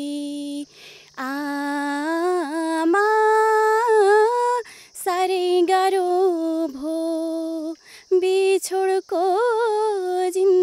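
A young woman singing a Nepali modern song unaccompanied, holding long wavering notes in phrases with short breaks for breath. A faint steady high insect buzz runs behind.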